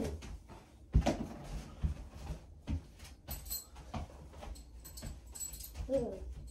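Knocks and light metallic clinks as steel bo-shuriken are pulled from a tatami target and gathered, the loudest knock about a second in. A small child's short whining voice near the end.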